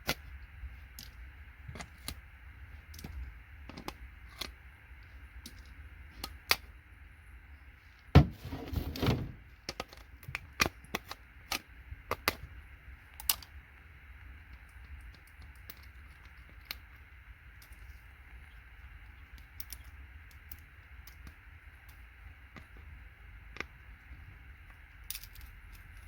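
Scattered clicks and small knocks of hand tools working on scrap circuit boards, over a steady faint hiss. About eight seconds in comes a sharp knock followed by a rattle of about a second, then a quick run of clicks.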